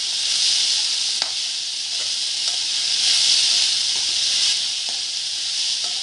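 Chopped onions sizzling in hot oil in a metal kadhai on high gas, a steady frying hiss, while a metal spoon stirs them, scraping and tapping the pan a few times.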